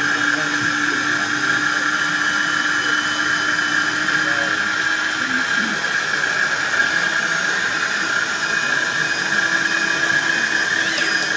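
Radio-controlled model tipper trucks' electric hydraulic pumps giving a steady hissing whine as the dump trailers are raised to tip their loads, with a fainter low hum that stops about halfway through and comes back near the end.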